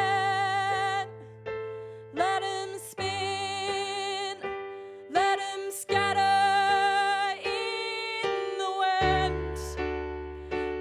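A woman singing long, high held notes with wide vibrato, several of them swooping up into the note, over sustained electric keyboard chords that change a few times.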